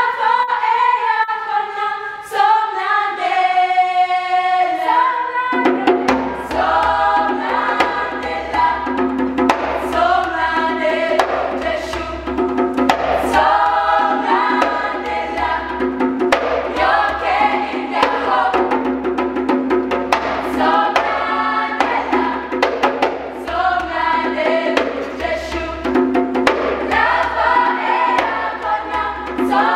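Children's choir singing, the first few seconds unaccompanied. About five seconds in, a low steady bass note and light rhythmic percussion come in under the voices.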